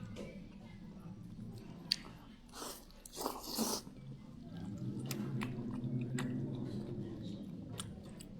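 A person eating hand-pulled noodles: chewing and slurping, with a louder slurp about three seconds in and a low hum in the background over the second half.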